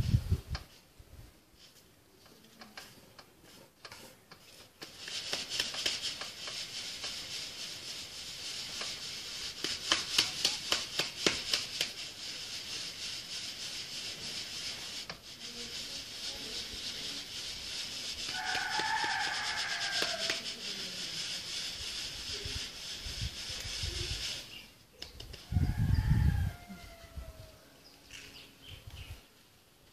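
Semolina grains hissing and rustling as they are shaken and rubbed through a wooden-rimmed drum sieve, sifting out the fine flour; the hiss starts a few seconds in, has a run of quick rhythmic shakes partway through, and stops near the end. A short bird call sounds about two-thirds in, and a thump comes near the end.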